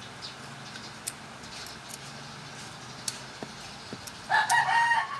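A few faint metallic clicks of hand tools on a scooter's valve rocker arms, then, about four seconds in, a rooster crowing loudly in one long held call.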